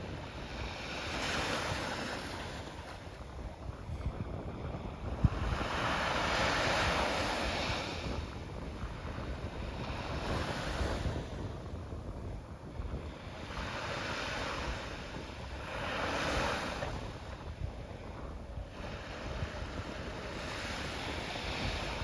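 Small waves breaking and washing up a sandy beach, the surf swelling and falling away every few seconds, over a low rumble of wind on the microphone. A single brief knock about five seconds in.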